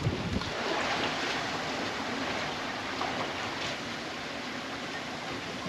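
Steady wash of sea water and waves around the hull of a sailboat under sail.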